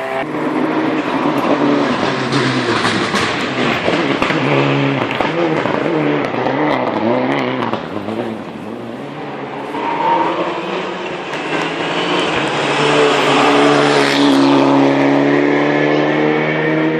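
Rally car engine running hard at speed, the pitch rising and falling quickly as it is revved through gear changes. The sound dips briefly around the middle, then swells again with a steadily rising engine note in the second half.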